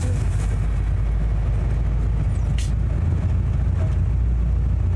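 Truck engine idling: a steady low rumble heard inside the cab. There is a short hiss about halfway through.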